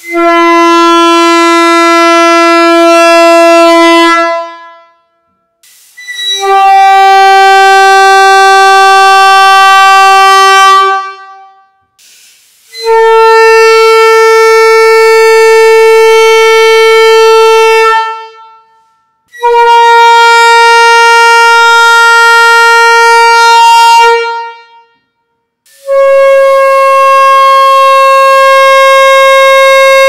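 Single bells of a 3D-printed PETG replica of a Nathan Airchime P5 train horn, blown one at a time on compressed air. Five steady blasts of about four to five seconds each, with short gaps between them, each a step higher in pitch than the one before.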